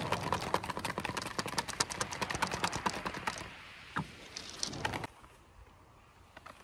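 Wire whisk beating homemade mayonnaise in a glass bowl: a rapid ticking of the wires against the glass as the oil is beaten in and the emulsion thickens. The whisking stops about three and a half seconds in, followed by a couple of light knocks and then quiet.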